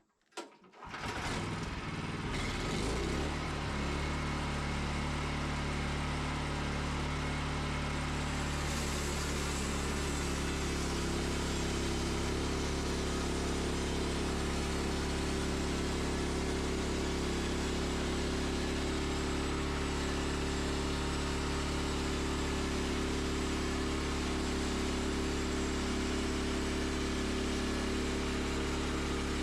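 Wood-Mizer LX25 sawmill's engine starting up about a second in, coming up to speed, then running steadily as the band blade saws through a small cedar log; a hissier cutting sound joins about eight seconds in.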